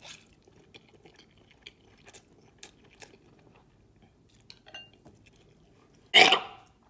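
A person chewing and slurping noodles, with faint wet mouth clicks and smacks. A sudden loud burst of breath comes near the end.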